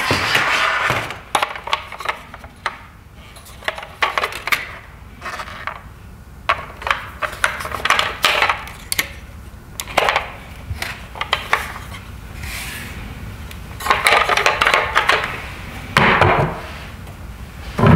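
Hard plastic toy police car being handled: scattered clicks, knocks and clatter of plastic as it is turned over in the hands and set down on a table.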